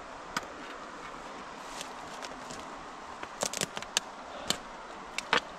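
Footsteps pushing through forest undergrowth, with twigs cracking and brush rustling in a cluster of sharp snaps in the second half, the loudest just before the end, over a steady background hiss.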